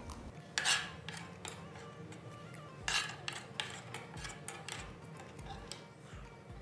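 Metal cutlery scraping and clinking against a plate of rice as food is scooped up, in a few irregular strokes, the longest scrapes about a second in and about three seconds in.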